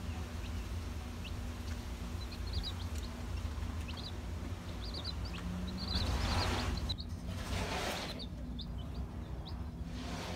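Three-day-old baby chicks peeping: many short, high cheeps that come in quick runs, over a low steady hum. A rushing, rustling noise rises about six seconds in and dies away about two seconds later.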